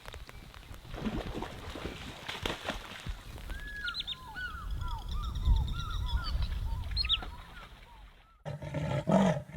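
A bird gives a rapid series of short calls, each rising then falling, for about four seconds in the middle, over a low rumble. Near the end a lion's deep roaring calls begin.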